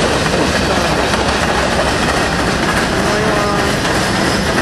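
Norfolk Southern freight train cars, a tank car and boxcars, rolling past at close range: steady, loud wheel-on-rail noise.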